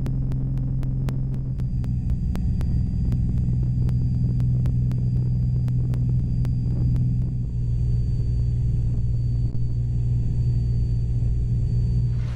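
Cessna 206 floatplane's piston engine and propeller droning steadily in flight, heard from inside the cabin. Faint regular ticks come about three times a second and stop about halfway through.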